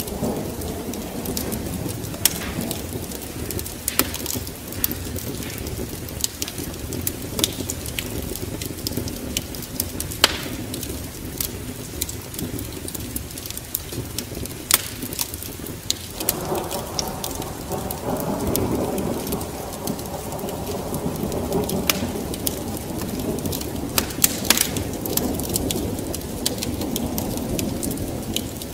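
Wood fire crackling with sharp, irregular pops over steady rain, with a low rolling rumble of thunder that swells suddenly about halfway through.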